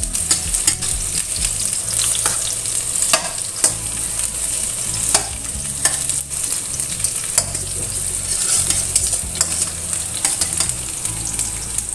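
Sliced shallots sizzling in hot oil in a stainless steel wok, being sautéed until fragrant. A metal spatula stirs them, scraping and clicking against the pan every second or so.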